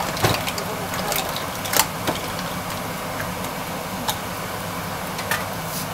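Mussel shells clacking against each other and the stainless steel pot as they are stirred with wooden spoons: several sharp clacks, the loudest about two seconds in. A steady hum runs underneath.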